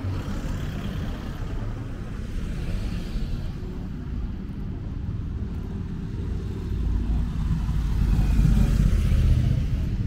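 Low rumble of road traffic passing in a village street, growing louder from about seven seconds in and easing off near the end.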